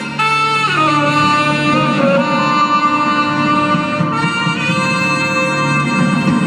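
Live Latin jazz band: a tenor saxophone plays long held notes over bass and band accompaniment, stepping down in pitch about a second in.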